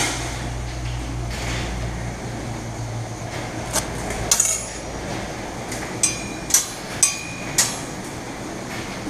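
Metal clasps and fittings of firefighter turnout gear clinking as it is handled and pulled on: a run of sharp metallic clinks in the second half, over a steady low hum.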